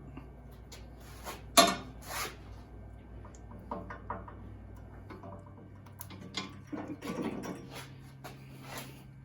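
Grease gun being worked on an awkwardly placed grease fitting: irregular metallic clicks and clanks, the sharpest about a second and a half in.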